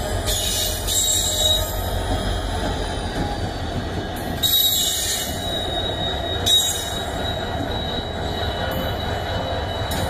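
Twin WDG-4 diesel locomotives running light, their two-stroke diesel engines giving a steady low rumble. Thin high wheel squeals come and go over it, loudest about half a second in, again around four and a half seconds in, and briefly about six and a half seconds in.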